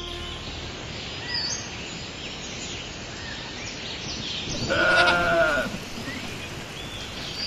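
A bleating farm animal calls once, loud and wavering for about a second, roughly five seconds in, over a rural background of short high chirps.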